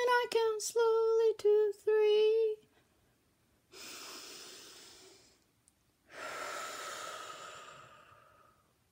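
A woman sings the last held notes of a short calming song, then takes a deep breath in and lets it out in a long, slow exhale, a breath taken to calm down from anger.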